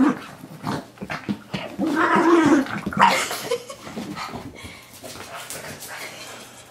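A pug growling in play at a toy. The growls are loudest in the first three seconds, then the dog goes quieter, with small scattered clicks.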